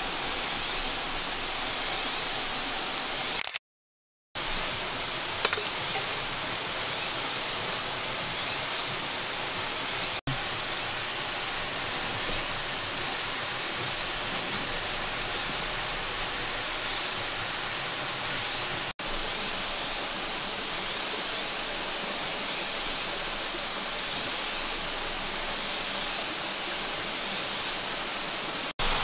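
Steady rushing of a rocky stream or small waterfall, an even hiss that keeps going, broken by a brief dead-silent gap about four seconds in and a few momentary drop-outs.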